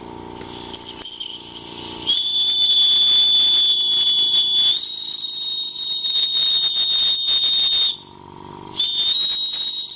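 Small brass steam whistle fitted to an RW-BL1K model steam engine's boiler, blown by hand. A hiss of steam turns into a high, steady whistle about two seconds in and holds for some six seconds. It cuts off, then sounds again about a second later.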